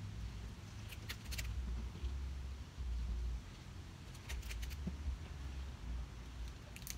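Rubber bands snapping onto a watermelon's rind as they are stretched around it: short sharp snaps in small clusters about a second in, again at around four and a half seconds and near the end, over a low rumble.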